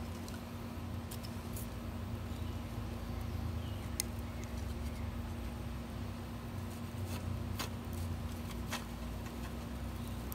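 Maple wood fire burning in a small metal hobo stove: a steady low rush with scattered sharp crackles and pops at irregular intervals.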